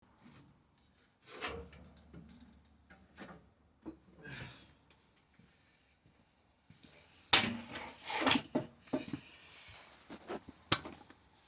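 Handling noises: scattered rubbing and clunks of things being moved about, with two sharp knocks, one about seven seconds in and one near the end.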